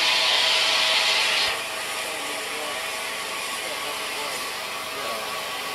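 Steam locomotive 34081, a Bulleid Battle of Britain class Pacific, hissing loudly at the platform; the hiss cuts off suddenly about one and a half seconds in. A quieter steady rumble of the locomotive and train carries on after it.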